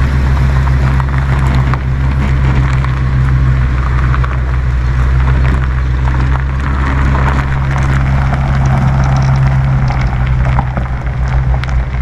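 A vehicle engine running at a steady pitch, with tyres crackling over a gravel drive as it rolls slowly.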